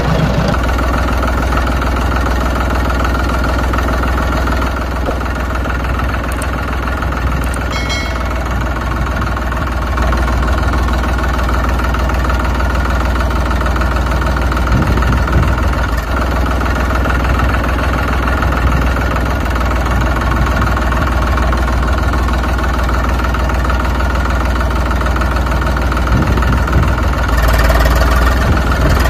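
Tractor engine running steadily at a low idle with a deep, continuous rumble, a little louder near the end.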